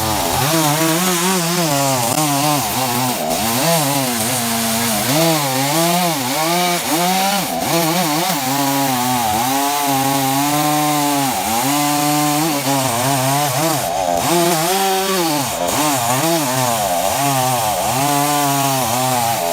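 Chainsaw running at high speed and cutting through a log, its engine note dipping and recovering again and again as the chain bites into the wood.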